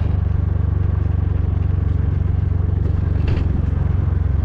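Motorcycle engine running steadily at low road speed, heard from the bike, with a brief clatter about three seconds in.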